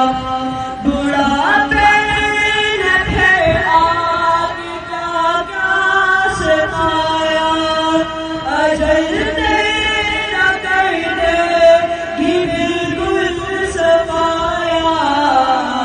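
A boy's solo voice singing a naat, an Urdu devotional poem in praise of the Prophet, in long held notes that bend and slide between pitches.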